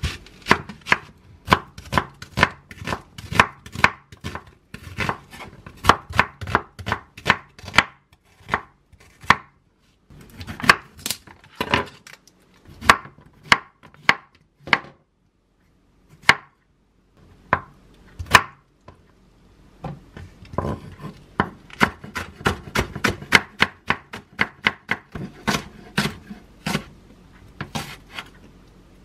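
Chef's knife chopping vegetables on a wooden cutting board: onion, then Korean zucchini sliced into half-moons, then green onions cut fine. Quick runs of sharp knife taps on the board, broken by a few short pauses.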